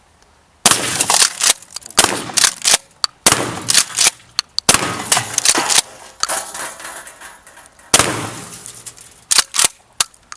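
Gun firing rapid strings of shots, several clusters of quick reports each followed by a short echo, starting about half a second in and ending with a few last shots near the end.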